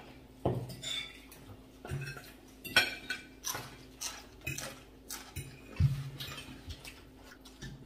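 Spoons and forks clinking and scraping against plates and bowls as several people eat at a table, in scattered separate clinks with a few sharper ones.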